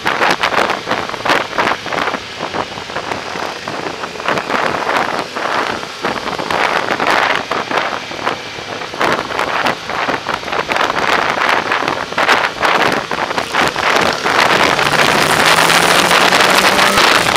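Wind buffeting the microphone of a camera riding on a moving Yamaha motorbike, with the bike's engine running underneath. Near the end the wind gets louder and a low engine tone comes up and rises slightly as the bike speeds up.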